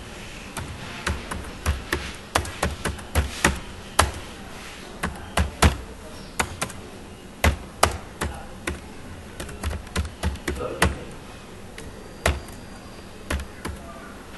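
Typing on a computer keyboard: sharp, irregular key clicks in short runs with brief pauses between them.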